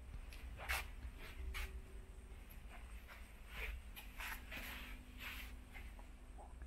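Faint, irregular scuffs and rustles from someone walking slowly with a handheld camera, over a steady low room rumble.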